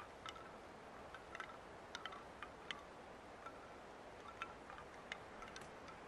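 Bamboo wind chimes clacking together irregularly: about a dozen light, hollow knocks, scattered and uneven, each with a brief ringing tone.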